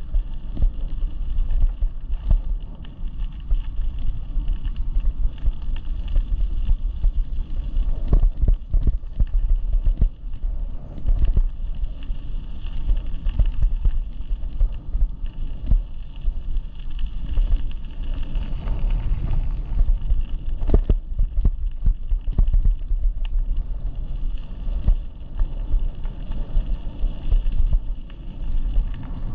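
Wind buffeting the microphone of a head-mounted GoPro while riding an e-bike: an uneven, gusting low rumble that rises and falls throughout.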